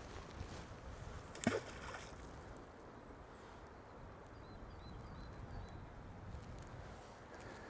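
A barbel rod being cast: a single sharp swish about a second and a half in as the rod whips forward and the line shoots off the reel, over a low steady outdoor rumble.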